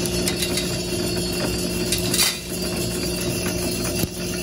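Drum sample coffee roaster running, with a steady motor hum and beans tumbling in the drum. A few sharp clicks cut through, the loudest about two seconds in and another just after four seconds in.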